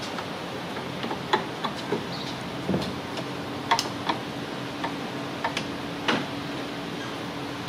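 Irregular light clicks and ticks of a flathead screwdriver prying a plastic retaining cap out of the radiator and AC condenser mounting. A faint steady hum comes in about three seconds in.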